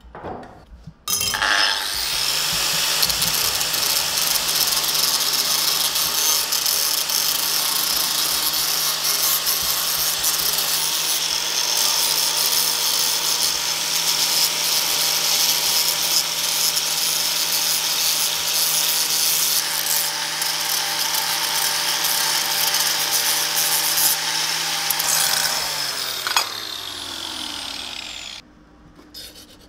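Angle grinder spinning up about a second in and grinding a steel plate: a loud, steady grinding noise over the motor's hum. Near the end it is switched off and winds down with a falling whine.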